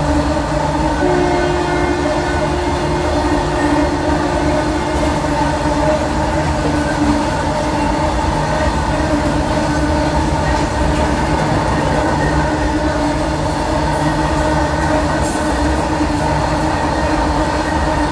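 Freight train's open box wagons rolling past at speed, with a loud steady rumble and clatter of wheels on rail. A long steady tone sounds from about a second in until about seven seconds in.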